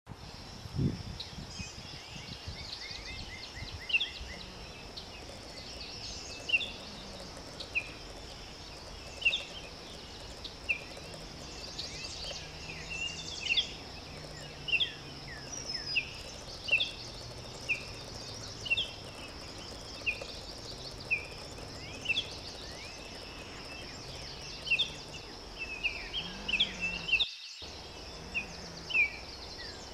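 Forest bird ambience: short high bird chirps every second or so over a steady high-pitched hiss.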